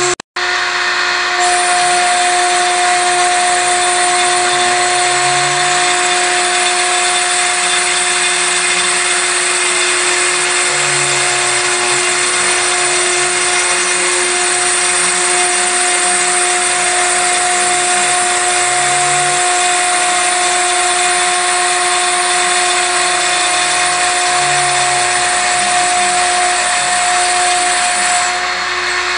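CNC router spindle running steadily with a 2 mm bit, milling 3 mm acrylic sheet: a constant whine over a noisy hiss. Lower motor tones shift in pitch every few seconds, and the sound cuts out for an instant just after the start.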